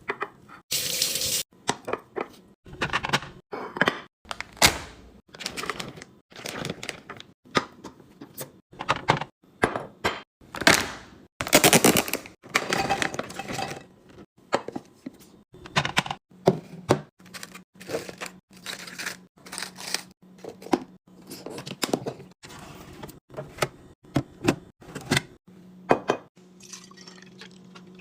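Kitchen handling noises from restocking a fridge: a quick run of clinks, taps and knocks as containers and packaged food are set down and moved, mixed with rustling packaging. A low steady hum comes in about two-thirds of the way through.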